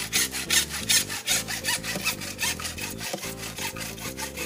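Hacksaw cutting through the pipe on top of a sprinkler pump, with steady back-and-forth scraping strokes.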